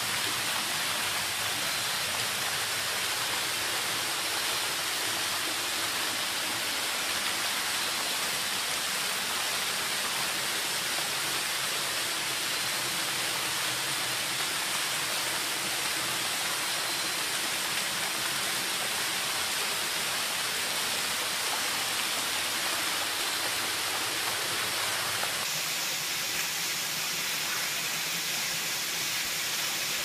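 Steady rushing and splashing of a thin, low-flow waterfall falling about 15 m into a rock pool. Its tone shifts a little near the end.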